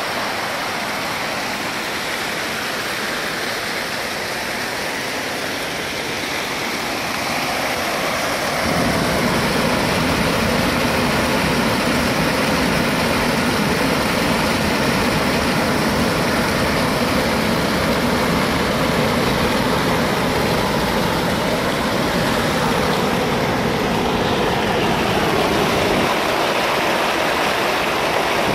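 Floodwater pouring over the stepped concrete spillway of a dam: a steady rush of falling water. It grows louder and fuller about a third of the way in.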